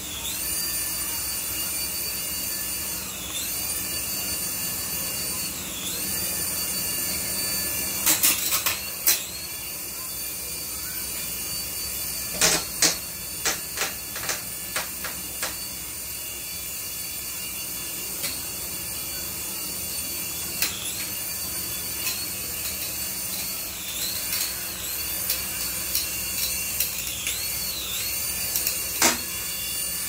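Toy coaxial RC helicopter's small electric motors whining high and steady, the pitch dipping and rising again every few seconds. Clusters of sharp knocks come about a third and about halfway through, and once more near the end.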